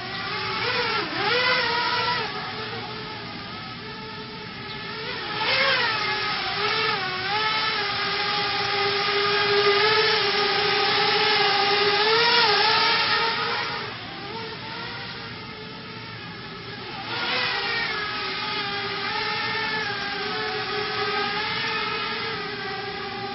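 Racing quadcopter's four Emax 2205 2300 kV brushless motors on a 4S battery, five-inch propellers whining in flight. The pitch rises and falls and the whine swells several times as the throttle is punched and eased, longest and loudest about ten to thirteen seconds in.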